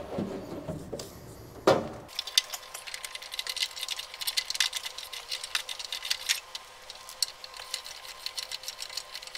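Electrical cable being pulled by hand through a hole into the engine bay: rapid, irregular scratchy rustling and ticking as the cable slides and rubs. Before that there is one sharp knock.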